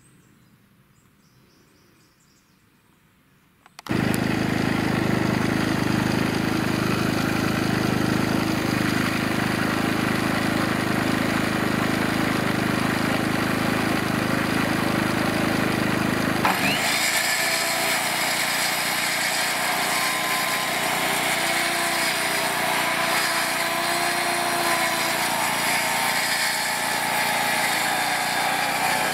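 Near silence, then about four seconds in a small engine-driven machine starts up loud and runs steadily. Its sound changes abruptly a little past the middle, after which its pitch wavers up and down as the load varies.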